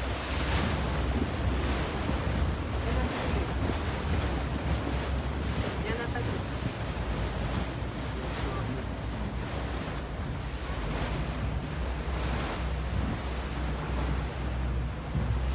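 A boat underway: wind buffeting the microphone in uneven gusts and water rushing past the hull, over a steady low rumble.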